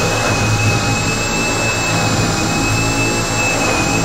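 Bosch GSB 18V-150 C cordless brushless drill running steadily under load, a 12 mm multi-construction bit boring into chipboard: a steady high whine over a low motor hum, with no change in speed.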